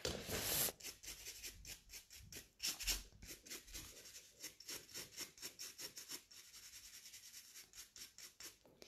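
Faint rustling and a run of small sharp ticks and clicks as nail supplies and a crinkly foil packet are handled.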